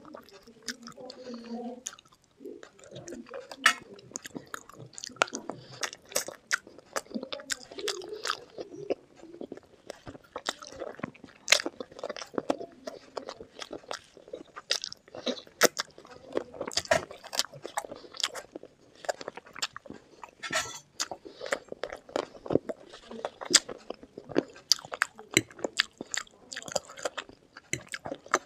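Close-miked eating of spicy chicken feet curry with Maggi noodles: steady chewing and biting with frequent sharp crunches, clicks and wet mouth sounds.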